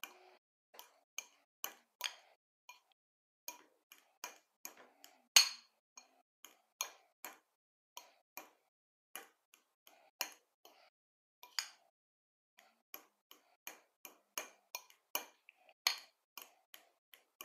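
A fork clinking against a glass bowl while mashing boiled egg yolks: sharp, irregular clinks, about two a second, with one louder clink about five seconds in.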